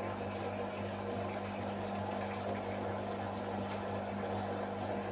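Beko washing machine running on its spin-drain programme: a steady, even hum with no rise in pitch.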